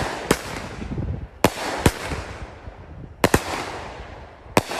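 Aerial fireworks going off: about six sharp bangs, a pair of them close together near the middle, each followed by a fading crackling hiss.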